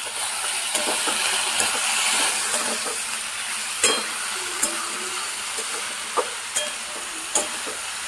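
Julienned potatoes and sliced onions sizzling in hot oil in a steel kadai, stirred with a metal spatula that knocks against the pan several times in the second half.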